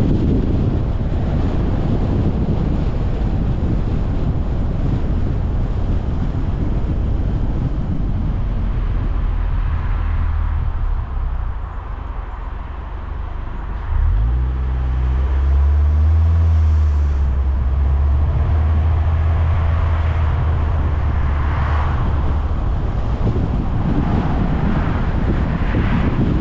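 Car driving along a road: a steady rush of wind on the microphone and tyre and road noise. The noise eases for a few seconds about halfway, then a steady low hum comes in and holds for several seconds.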